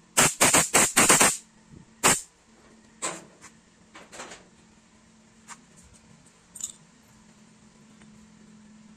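An aerosol can of carburetor cleaner is sprayed in five quick hissing bursts, then one more burst about two seconds in, cleaning a carburetor part. A few fainter clicks and handling sounds follow.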